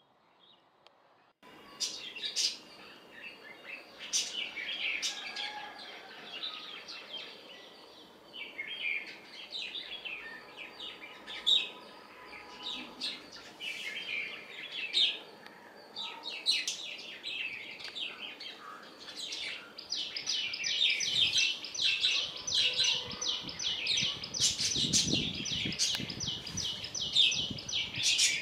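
Songbirds chirping: after a second and a half of near silence, many short high chirps start suddenly, and from about two-thirds of the way through they thicken into a fast, dense chattering of high notes.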